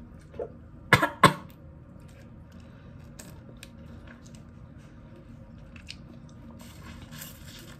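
A person coughs twice in quick succession about a second in, then faint chewing and mouth clicks against a plastic bag of homemade jelly held between the teeth.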